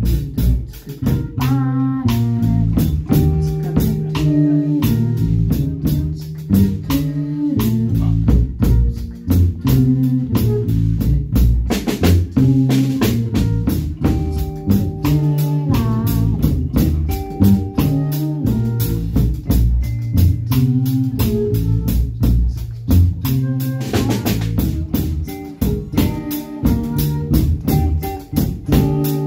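Instrumental band music: a drum kit keeping a steady, busy beat under guitar and a low bass line.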